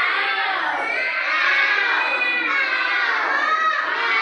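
A group of young children calling out loudly together, many high voices overlapping with rising and falling pitch.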